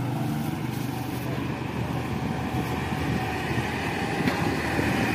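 Steady background rumble of road traffic.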